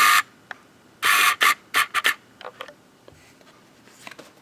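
Pokémon trading cards sliding against each other as they are flipped through by hand: a few short swishes, the longest about a second in, then fainter ticks.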